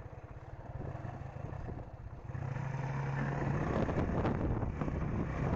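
Suzuki GN125H's single-cylinder four-stroke engine running, getting louder about two seconds in as it revs up, with rushing noise rising alongside.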